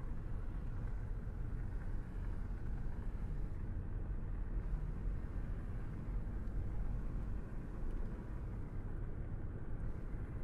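Car driving at a steady pace: a low, even rumble of tyre and engine noise with no changes in pitch or level.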